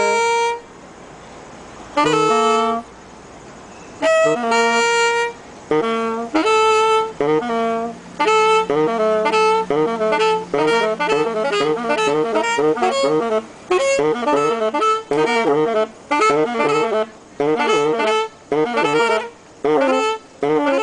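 Two saxophones playing a duet: short separate notes with pauses at first, then quicker runs. For a couple of seconds around the middle, one horn holds a low note under the other's moving line.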